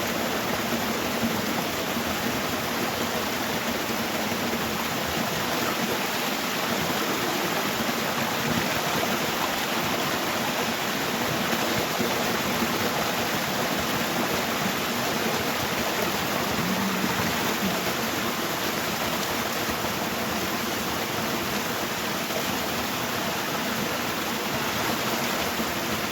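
Steady rush of falling water from a waterfall, unbroken throughout.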